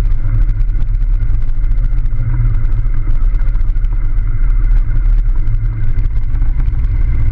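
A vehicle driving on a dirt and gravel road: a loud, steady low rumble of engine and road noise, with scattered small crunches and ticks from the gravel under the tyres.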